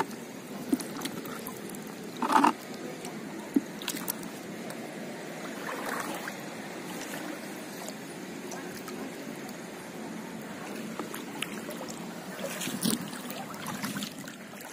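Shallow water sloshing and trickling as a hand scoop net is swept through it and lifted out dripping, with a few brief louder splashes.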